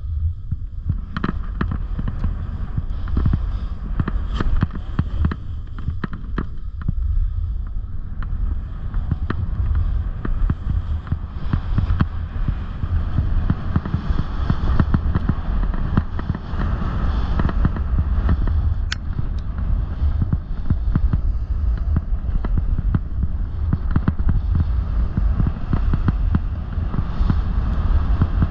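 Wind buffeting the microphone of a snowboarder's camera as the snowboard slides down a groomed slope, its base and edges scraping over the snow with frequent sharp clicks and chatter.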